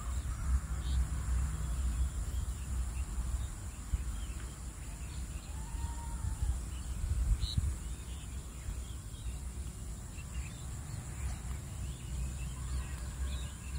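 Low, uneven background rumble with faint, scattered bird chirps, including one short rising-and-falling note about six seconds in.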